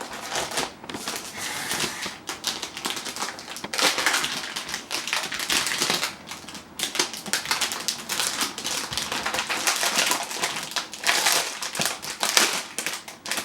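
Plastic wrapping crinkling and rustling as it is peeled off a new mechanical keyboard, in an irregular run of crackles with louder stretches.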